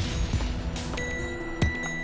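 Background music with sustained held notes. A high steady tone enters about halfway through, and there is a single sharp hit near the end.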